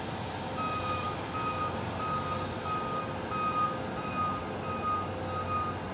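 Construction machine's reversing alarm beeping at a steady pace, a little more than once a second, starting about half a second in, over a steady low hum.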